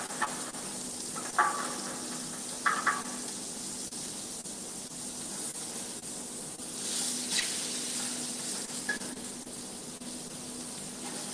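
Butterfish fillet sizzling steadily as it pan-fries in a hot frying pan, with a few short sharp sounds in the first three seconds. The sizzle swells briefly about seven seconds in.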